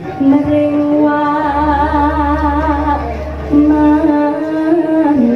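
A female sinden singing Javanese-style through a microphone, holding long notes with a wavering vibrato and stepping between pitches. A low steady tone sits under the middle of the phrase.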